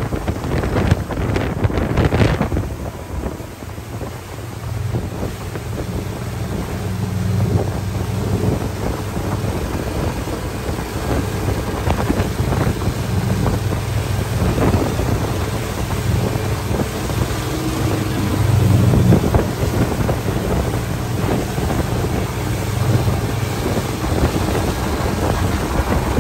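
Evinrude 200 HO outboard motor running steadily at speed while towing a rider, a low drone under wind buffeting the microphone and the rush of water from the wake. The wind gusts hardest in the first two seconds or so.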